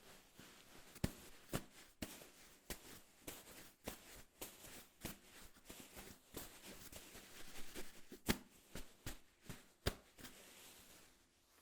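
A drink container being crushed by hand: a run of irregular crackles and crunches, with a few sharper snaps, thinning out near the end.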